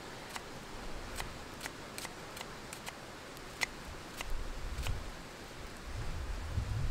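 Kitchen knife slicing an onion on a log chopping block: about a dozen crisp cuts at an uneven pace, the blade clicking through the onion onto the wood.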